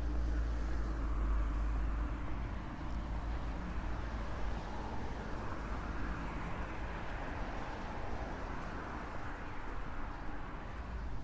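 Steady outdoor street ambience: road traffic passing at a distance, with a constant low rumble underneath.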